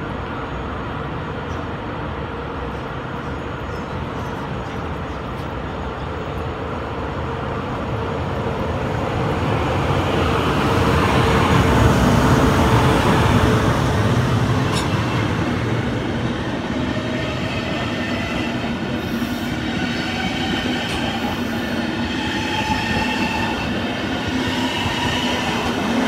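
A DB class 111 electric locomotive hauling n-Wagen coaches rolls past close by, with a steady hum as it approaches. The sound swells to its loudest as the locomotive goes by about halfway through, then the coaches keep rolling past with an even rumble.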